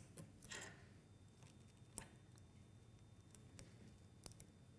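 Near silence with a few faint, short clicks and taps, the clearest about two seconds in, from handling stripped wires and small plastic push-wire splicing connectors.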